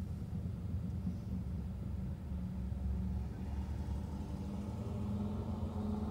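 An engine running with a steady low rumble; its hum and a few higher tones grow stronger over the last couple of seconds.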